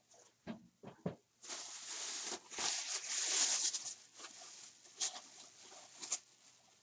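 A plastic shopping bag crinkling and rustling as it is handled, densest from about one and a half to four seconds in. A few light knocks come just before it.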